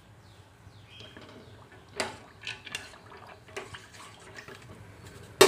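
Penne pasta being washed by hand in water in a stainless steel pot: soft sloshing and swishing with a few light clicks. A single sharp knock comes near the end.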